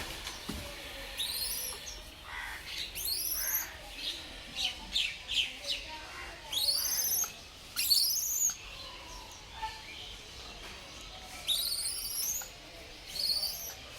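Baby langur monkey squealing: about six high-pitched squeaks, each rising in pitch, spaced a second or more apart, with shorter, lower chirps between them.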